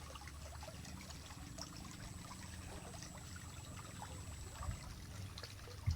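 Flowing water of a stream, a steady low rush, with a thin high steady tone above it that stops about five seconds in.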